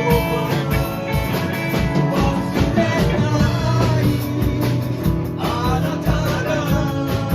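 Live rock band playing a Japanese rock song: guitars and bass over a steady drum beat, with a singer's voice in places.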